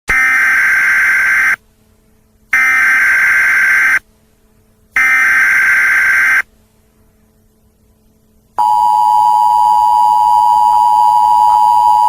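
Emergency Alert System SAME header: three bursts of data tones, each about a second and a half long with a short gap between them. About eight and a half seconds in comes the steady two-tone EAS attention signal, which warns that an alert message follows.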